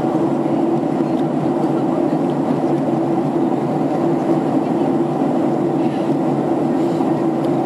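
Steady cabin noise inside a Boeing 767 in flight: the jet engines and the rush of air over the fuselage make an even drone, with a steady low hum running through it.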